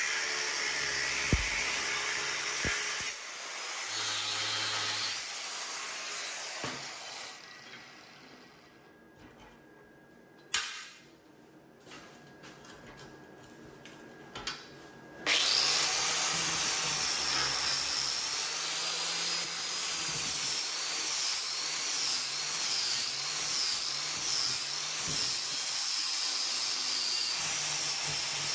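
A handheld power tool working metal runs, dies away to quiet for several seconds midway, then starts again abruptly with a whine that wavers in pitch as the load changes.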